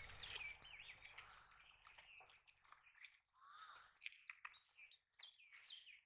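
Faint chirping and short calls of small birds, over light rustling and clicking from a nylon cast net being handled and picked over on the ground. A low rumble fills the first two seconds.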